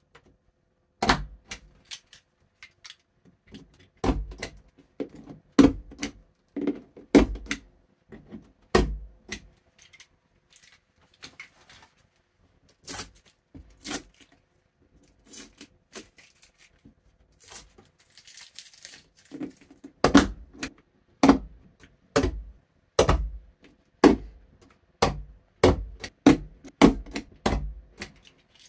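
Handheld mini stapler clacking again and again as it is pressed against a plasterboard wall, driving #10 staples through 3D-printed plastic mount bases, with clicks and knocks of the plastic parts being handled between strokes. A brief rustle about two-thirds of the way through.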